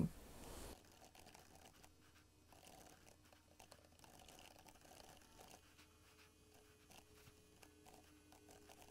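Faint, irregular clicking of laptop keys being typed on, barely above near silence.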